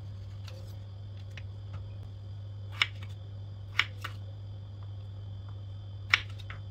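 A kitchen knife cutting peeled raw potatoes on a wooden cutting board: short, sharp knocks of the blade meeting the board, three loud ones spread over the middle and end with fainter taps between. A steady low hum runs underneath.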